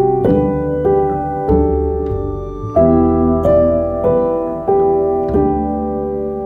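Slow, calm solo piano music: single notes and chords struck about every half second to second, each ringing on and fading.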